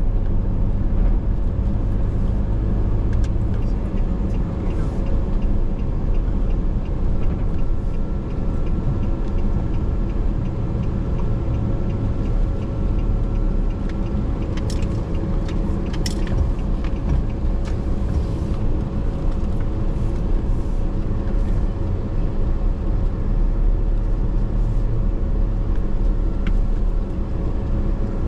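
Car driving along a town road: steady engine and road rumble with a constant hum, and a few brief clicks about halfway through.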